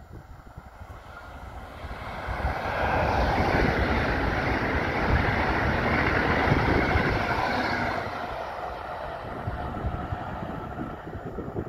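PKP Intercity ED161 (PESA Dart) electric multiple unit passing at speed. Its running noise swells over about two seconds, stays loud for several seconds, then fades. Wind buffets the microphone throughout.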